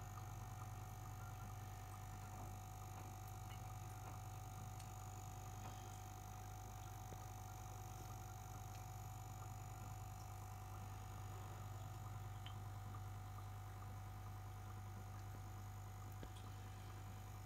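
Faint, steady low hum with a fainter steady tone above it and a few scattered soft ticks.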